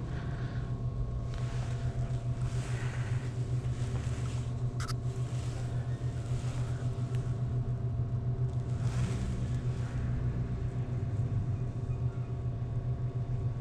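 Steady low mechanical hum with a fast flutter, with faint rustling and a single sharp click about five seconds in as the phone is handled.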